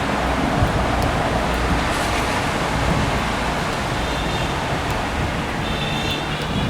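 Urban rain ambience: steady rainfall on a wet city street mixed with the noise of passing road traffic. A faint high, layered tone comes in about four seconds in and grows clearer near the end.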